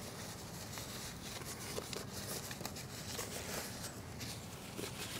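Faint rustling of a paper towel and light taps as grease is wiped off a boat-trailer wheel's bearing buddy cap, over steady low background noise.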